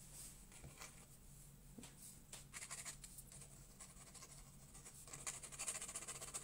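Pen nib scratching across watercolour paper in quick short strokes, scribbling and hatching ink marks. It is faint, and the strokes come sparsely at first and more busily after about two and a half seconds.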